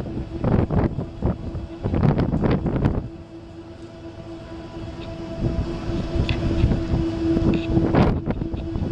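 Wind buffeting the microphone for the first few seconds. Then a steady machine hum at one pitch from the gantry crane's hoist as it lowers the dam's intake stoplog on its cables, growing louder. A single sharp knock comes near the end.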